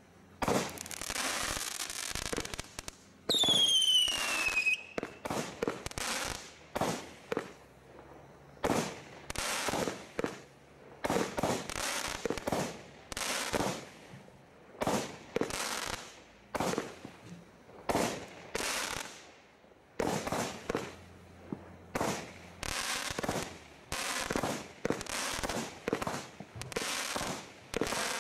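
Firework barrage cakes from a Bright Star Dam Busters Barrage Pack firing a steady series of shots, roughly one a second, each a sharp bang. About three seconds in, one shot carries a falling whistle.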